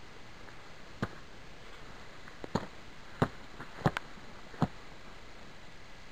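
Boot kicking the base of a wooden shelter support pole to drive it in: about six sharp knocks at uneven intervals, the loudest near the middle.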